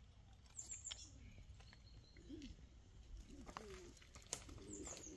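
Faint bird cooing: a few low, soft calls from about two seconds in, with a couple of short high chirps about half a second in and a sharp click a little past four seconds.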